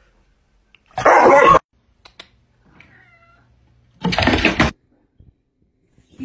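Domestic cat crying out: two loud, short, harsh cries about three seconds apart, with a faint meow between them.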